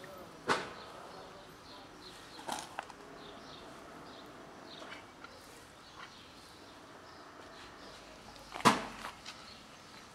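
Cats eating dry kibble from a plastic tub: a few sharp crunches and knocks, the loudest near the end. Faint bird chirps sound in the background.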